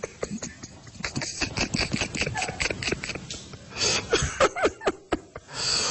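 A man laughing in short, stifled bursts, with a long breathy wheeze around the middle and another near the end.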